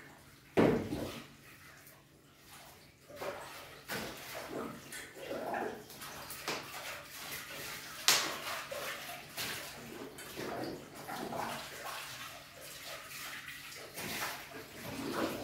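Washing up by hand at a sink: tap water running and splashing, with scattered knocks and clinks of dishes and pans. The loudest are a knock about half a second in and a sharp clink about 8 seconds in.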